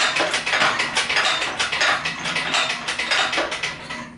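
Rapid metallic ratcheting clicks, several a second, that slow and stop just before the end.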